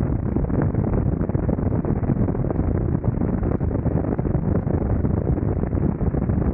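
Heavy wind rush on the microphone of a 360 camera riding on a Kawasaki Vulcan 900 motorcycle at about 65 to 70 mph, steady throughout, with the bike's V-twin engine running beneath it.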